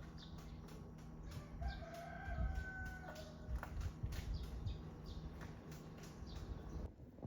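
A single drawn-out animal call about one and a half seconds in, lasting about a second and a half and dropping in pitch at the end, over a low steady background rumble.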